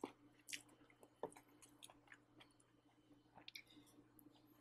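Faint chewing of pork ribs with bamboo shoots, with a few soft, scattered clicks of chopsticks picking food from the pot.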